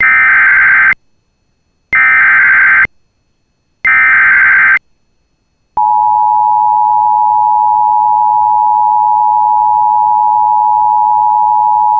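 Emergency Alert System alert tones: three one-second bursts of buzzy SAME header data, each followed by about a second of silence. Then the steady two-tone EAS attention signal starts and holds, announcing a new weather warning.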